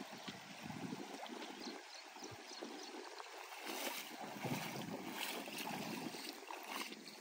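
Water sloshing and splashing around a man's legs as he wades through shallow lake water, with gusts of wind buffeting the microphone. The splashing is busiest about four to five seconds in.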